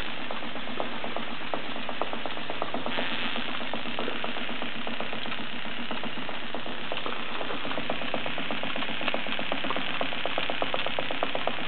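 Cyldon 13/2 toy steam engine running steadily: its single-acting piston and semi-rotative valve make a fast, even beat of small puffs and ticks over a steady hiss. The hiss grows brighter about three seconds in.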